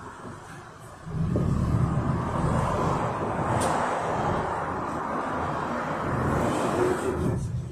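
Interior ride noise of a Yutong ZK6890HGQ city bus under way: its Yuchai YC4G200-50 engine and the road. A low rumble swells about a second in and holds steady, and the broader road noise eases near the end.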